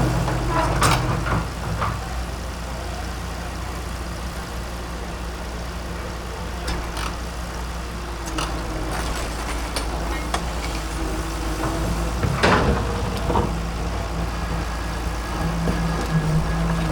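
Excavator's diesel engine running steadily, its note growing stronger near the end, with scattered sharp knocks and cracks of the machine working. The loudest knock comes about twelve seconds in.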